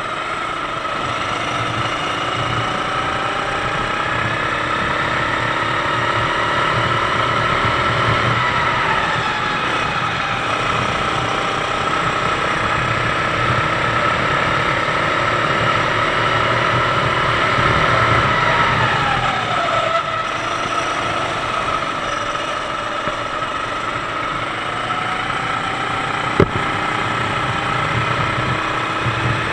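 Sodi kart's 390cc four-stroke engine running at speed, heard onboard. Its pitch drops twice as the throttle is lifted for corners, then climbs again, with a single sharp knock near the end.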